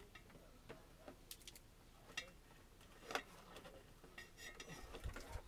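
A few faint, scattered clicks and clinks of small hard objects being handled, over near silence.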